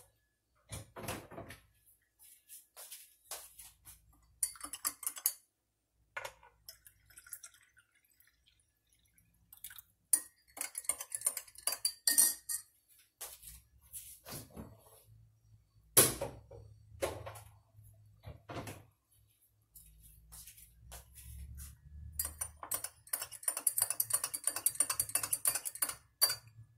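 Scattered clinks and knocks of a metal spoon against a glass of coffee on a counter, ending in about three seconds of rapid clinking as the spoon stirs in the glass.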